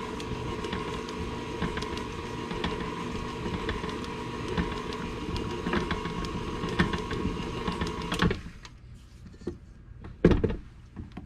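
Electric mixer running steadily with a whine, creaming cookie dough, then switched off about eight seconds in. A sharp knock or two follows a couple of seconds later.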